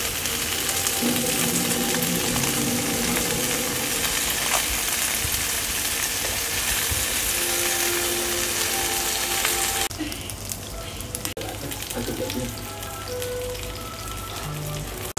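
Whole fish sizzling in hot oil in a frying pan while being turned with tongs. About ten seconds in, the sizzle abruptly becomes quieter and thinner.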